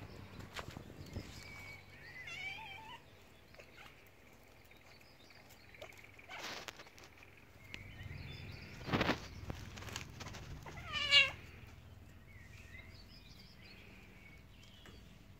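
A cat meowing several times in short cries, the loudest a falling meow about eleven seconds in. Two brief rustling noises come around six and nine seconds in.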